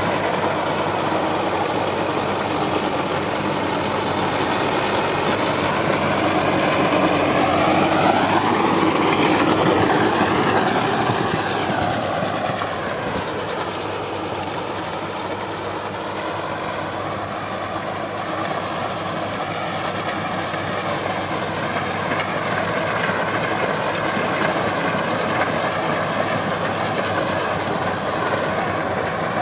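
Sonalika DI 750 tractor's diesel engine running steadily under load while driving a rotavator (rotary tiller) through dry soil. About eight to ten seconds in it grows louder and its pitch rises and then falls as it passes close, then it settles back to an even drone.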